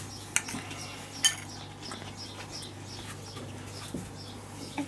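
Metal spoon clinking against a dish while scooping baby food: two sharper clinks in the first second and a half, then small ticks and scrapes.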